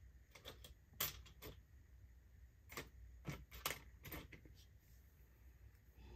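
Light metallic clicks and clinks of flat aluminum wire rings being handled and slipped onto fingers: about ten faint, irregular taps.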